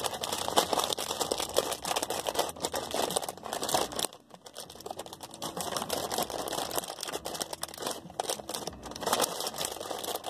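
Crinkly plastic packaging crackling and rustling as a squishy toy is unwrapped by hand, in dense irregular crackles with a brief quieter pause about four seconds in.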